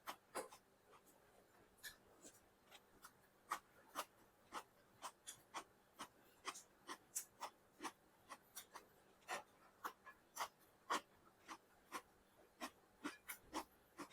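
Close-miked eating: quiet, irregular wet clicks and smacks of chewing, about two a second.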